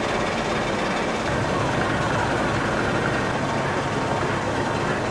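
Woollen carding machine running: a steady mechanical din of rotating rollers and chain drives with a low hum, which grows stronger about a second in.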